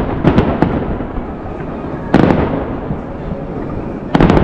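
Fireworks bursting overhead: a run of sharp bangs and crackles at the start, a single loud burst a little past halfway, and a quick cluster of bangs near the end, over a steady crowd murmur.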